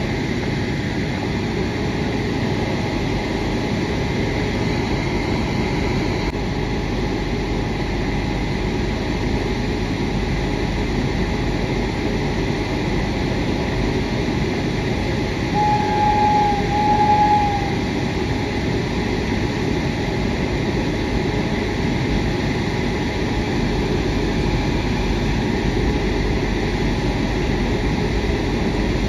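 An approaching goods train's locomotive sounding two short horn blasts about halfway through, over a steady low rumble.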